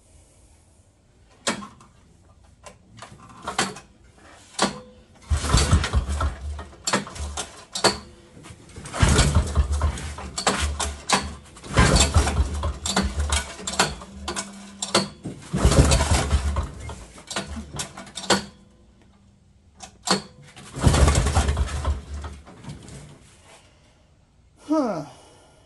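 The 1968 Eaton Viking snowmobile's small two-stroke engine being cranked over by hand in about five bursts of a second or two each, with rapid knocking and a low rumble, without starting.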